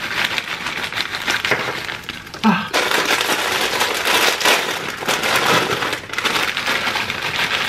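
Green Takis rolled tortilla chips pouring out of foil snack bags onto a heaped pile: a dense, continuous rattle and crackle of many small hard pieces, mixed with the crinkling of the foil bags being shaken and torn open.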